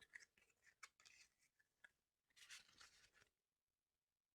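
Near silence, with a few faint soft ticks and a brief rustle about two and a half seconds in, from game cards being handled.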